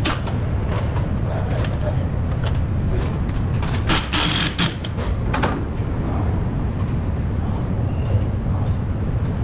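Strut replacement work on a car: metal tool knocks and clanks over a steady low hum, with a brief hiss and rattle of strikes about four seconds in.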